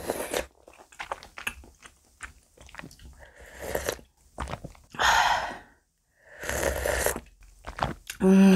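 A person eating hot rice cake and dumpling soup close to the microphone: several short slurps off a spoon, with chewing and small mouth clicks between. A brief hummed voice sound comes near the end.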